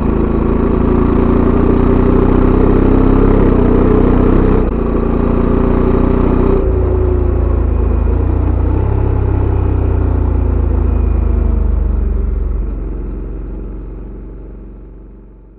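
Honda Africa Twin CRF1100's 1084 cc parallel-twin engine running through its stock exhaust, heard close to the muffler. The pitch rises slightly, then drops in two steps about 4.5 and 6.5 seconds in, settles steady, and fades away over the last few seconds.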